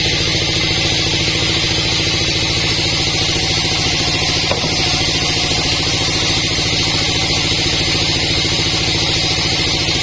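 Sawmill engine running steadily at constant speed, with a fast even pulse and a steady high hiss over it.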